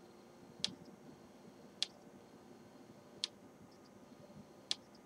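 Four short, sharp clicks, about one every second and a half, over a faint steady room hiss.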